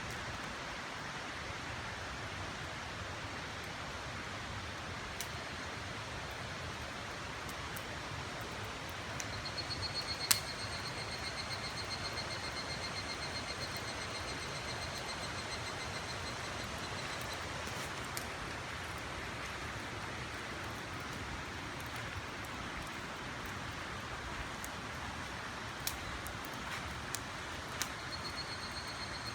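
Mountain stream in a gorge, rushing steadily. A high, rapidly pulsing trill joins about ten seconds in for several seconds and again near the end. A sharp click about ten seconds in is the loudest moment.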